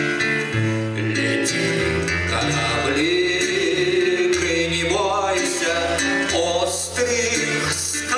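A man singing a Russian song, accompanying himself on acoustic guitar.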